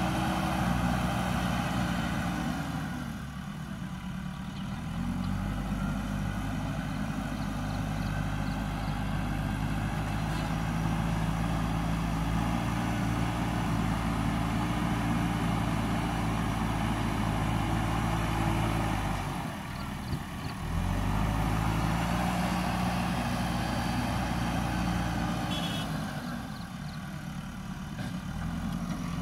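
JCB backhoe loader's diesel engine working as the front bucket pushes soil. Its revs fall and pick back up three times: about three seconds in, again just under twenty seconds in, and near the end.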